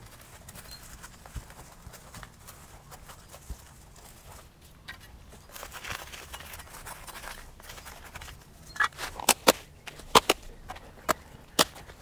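A potted ficus benjamina forest being rocked and worked out of its plastic pot: faint rustling of leaves and soil with scattered small ticks. Then, from about nine seconds in, a quick series of about eight sharp cracks and knocks as the pot is tipped over and the root mass is pulled at.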